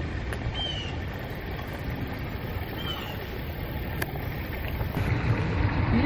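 Steady low outdoor rumble, with two faint short high chirps and a single click.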